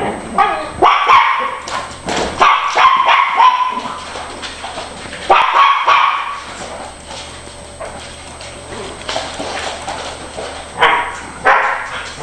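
Dogs barking in rapid runs during a play chase: a flurry of barks at the start, another burst about halfway through, and two more short bursts near the end.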